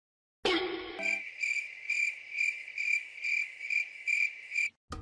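A high, even chirping like a cricket's, about two and a half chirps a second, starting about a second in and stopping abruptly shortly before the end. A brief pitched sound comes just before it.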